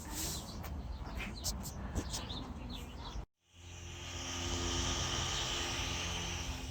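Birds chirping over a low rumble. After a sudden cut about three seconds in, a steady mechanical hum with a hiss takes over, rising a little in level.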